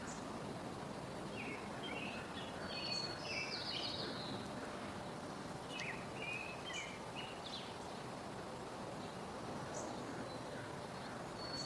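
A small songbird singing short phrases of quick chirps and warbles a few seconds apart, over a steady outdoor background hiss.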